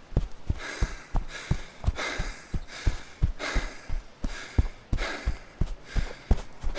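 A person running, with quick even footsteps about three a second under loud panting breaths.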